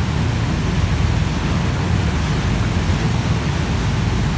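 Steady rushing rumble of a passenger ferry under way, heard from its open stern over the churning wake, with wind buffeting the microphone.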